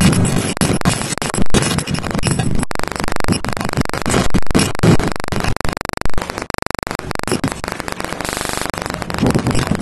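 Glitched digital camcorder audio from a corrupted DV recording: choppy noise and buzz broken into rapid stuttering fragments, with stretches of fast, even pulsing.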